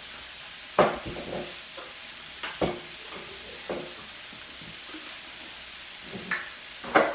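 A spoon stirring a pot of seasoned beans, with about five short knocks and scrapes against the pot over a steady low sizzle from the stove.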